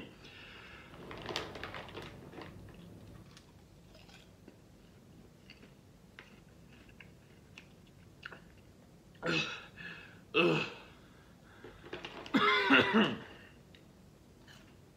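A person eating popcorn: faint, scattered crunching chews, then three short vocal noises in the second half, the last about a second long.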